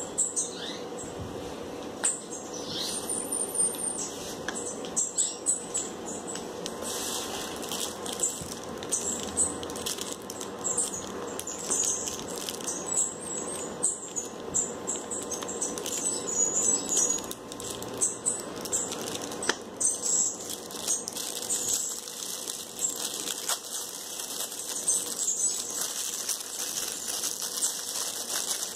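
Small birds chirping and fluttering about, with scattered sharp clicks and light patter, over a faint steady hum.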